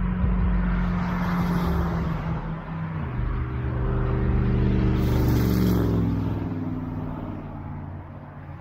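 Brightline passenger train passing, its Siemens Charger diesel-electric locomotive's engine drone dropping in pitch as it goes by and fading near the end, with a rush of wheel and wind noise at the loudest point.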